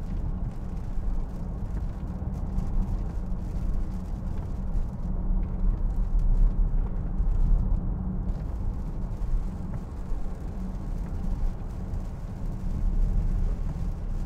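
Steady low rumble inside the cabin of a 2013 Range Rover Vogue 3.0 TDV6 diesel as it drives at a steady pace on a wet road.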